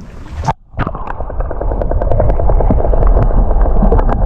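Boat's outboard motor running with a fast, even pulsing and a deep rumble, getting louder about a second in as the boat gets under way.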